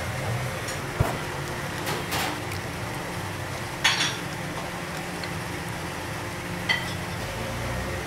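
A knife and metal kitchenware clinking a few times, the loudest about four seconds in, over a steady low hum.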